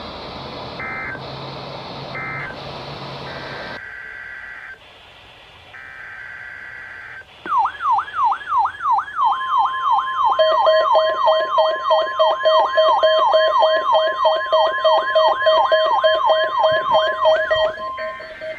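Emergency Alert System tones over a weather radio: three short data bursts about a second apart, then two longer data bursts, then a fast warbling siren-like alert tone about three sweeps a second, joined by a steady tone and a pulsing lower beep, which all cut off near the end.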